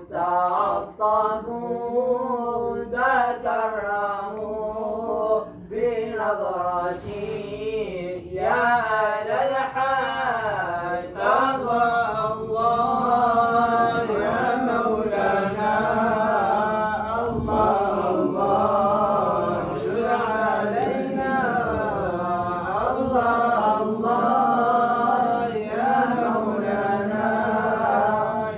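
Moroccan amdah nabawiya, devotional praise songs for the Prophet, chanted with long, ornamented lines whose pitch wavers and slides.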